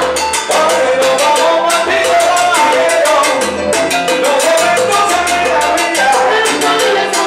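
Live salsa band playing: bass notes under melody lines, with a steady, dense percussion rhythm and singers on microphones.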